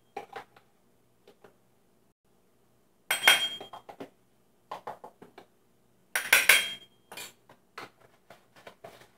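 Kitchen clatter from measuring spices into a bowl: a measuring spoon and spice containers knocking and clinking against the bowl, with light clicks. There are two short bursts, about three and six seconds in, some with a brief ring.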